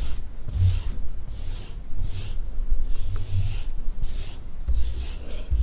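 Hands rubbing and smoothing soft clay on a workbench: a run of rhythmic rubbing strokes about one every second, each with a low rumble underneath.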